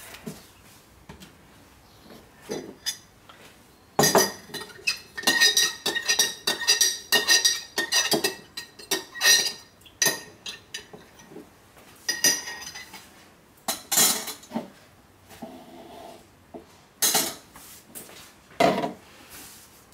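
A utensil clinking and knocking against a bowl or container, a quick run of ringing knocks from about four to ten seconds in, then scattered clinks.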